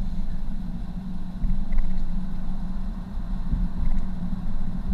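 Car driving along a city street, heard from inside the cabin: a steady low rumble of engine and tyre noise that swells and eases a little.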